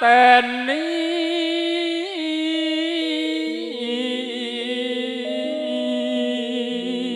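A singer performing a bawa, the slow free-rhythm sung introduction of a Javanese song, holding a long wavering note on the word 'ngenteni'. About three seconds in, sustained keyboard chords come in beneath the voice.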